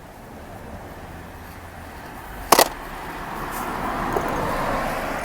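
A car passing, its tyre and engine noise swelling over a couple of seconds and easing off near the end, with one sharp knock about two and a half seconds in.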